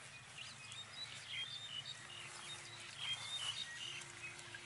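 Small birds chirping in short, scattered calls over a faint steady outdoor background, with a low steady note held for about a second, twice.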